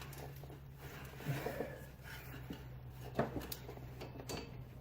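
Faint rubbing and a few light knocks as a new rubber serpentine belt is worked by hand around the engine pulleys, over a steady low hum.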